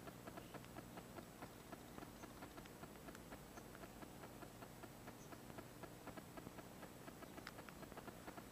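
Near silence: faint room tone with a low steady hum and many faint clicks, several a second.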